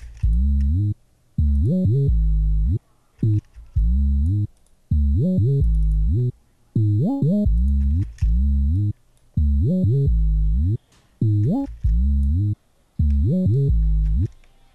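An 808 bass plays a trap/drill pattern of deep, loud notes. Many of them slide, gliding steeply up in pitch into the next note. The pattern has short gaps between the notes.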